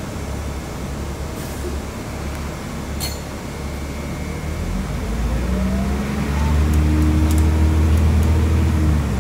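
A 2004 city bus heard from inside the passenger cabin: a steady low engine and drivetrain rumble, which picks up about five seconds in as the engine revs and a whine rises in pitch while the bus accelerates, growing louder. There is a brief click about three seconds in.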